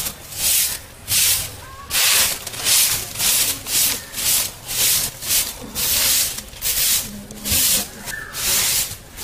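Soft grass broom swishing across a packed dirt yard in steady sweeping strokes, about two a second.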